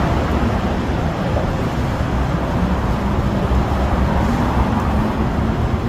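Steady rumble of road traffic and running vehicle engines, with a faint low hum.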